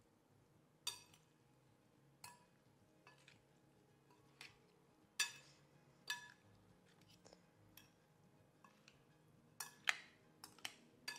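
A spoon stirring a lentil salad in a bowl, giving faint, scattered clinks against the dish, spaced out at first and coming closer together near the end.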